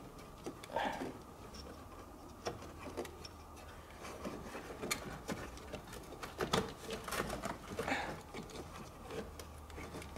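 Faint, irregular clicks and small knocks of hands fumbling behind a classic Mini's dashboard, feeling for the fixings that hold the dash panel.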